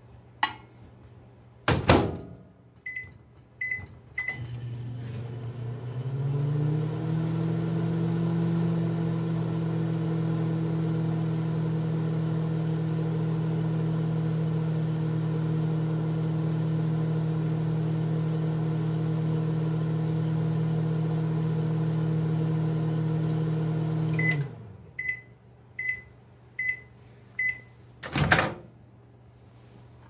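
Panasonic 1200-watt microwave oven: the door shuts with a clunk, three keypad beeps sound, and the oven runs with a steady low hum for about twenty seconds. It then stops, gives five end-of-cycle beeps, and the door is popped open with another clunk.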